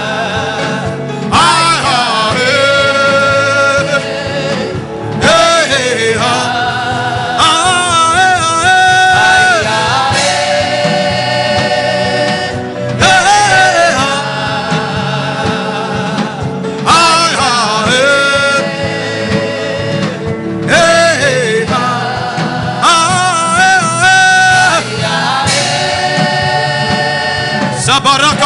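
Gospel worship song: singing in repeated phrases of a few seconds each, with held, wavering notes, over instrumental backing.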